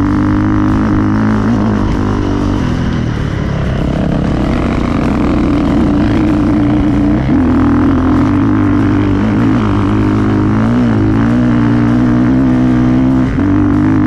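A vehicle engine running steadily with a deep drone, its pitch sagging and rising a few times as the speed changes.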